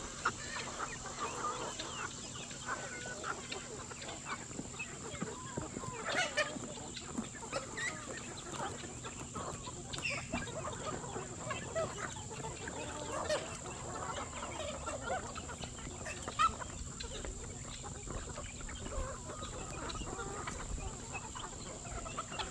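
A flock of chickens clucking, with many short calls overlapping all the way through. A faint steady high-pitched whine runs underneath.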